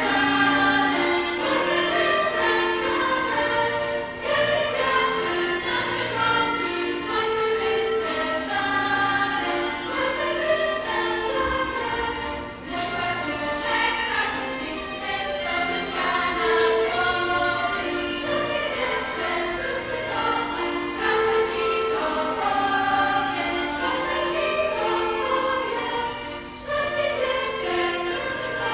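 A group of young women singing a folk song together in chorus, over instrumental accompaniment.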